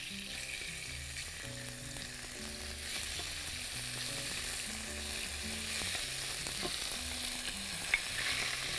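Raw chicken strips sizzling as they fry in hot oil in a non-stick pan, stirred with a wooden spatula. The sizzle is steady, with a single small tick near the end.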